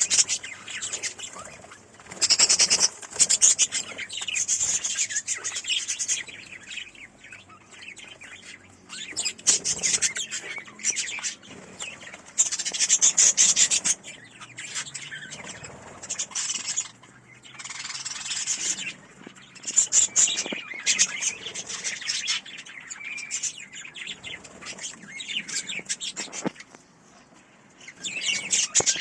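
Budgerigars chirping and chattering in repeated bursts of a second or two, with short quieter gaps between.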